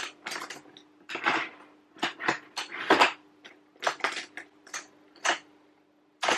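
Makeup brushes and cosmetics clattering and clinking as they are rummaged through in search of a concealer brush: irregular clicks and knocks, some sharper than others.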